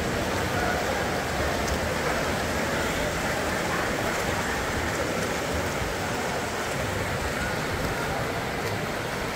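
Water polo players swimming fast freestyle across the pool, a steady wash of splashing water.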